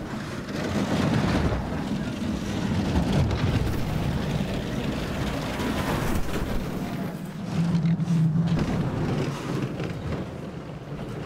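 Bobsled running at speed down an ice track: a continuous loud rumble and scrape of the runners on the ice. A low hum swells for about a second around eight seconds in.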